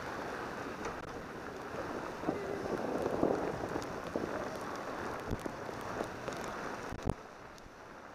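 Steady rushing noise of a bicycle ridden through rain on a wet street, with scattered sharp taps of raindrops striking the camera.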